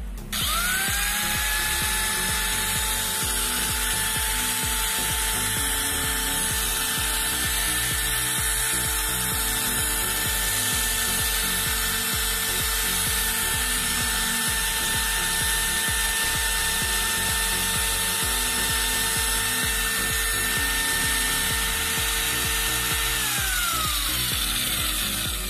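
Angle grinder switched on with no disc fitted, its motor whining up to speed and running steadily unloaded, then switched off near the end, the whine falling in pitch as it winds down. This is a test run of the restored armature. Background music with a steady beat plays underneath.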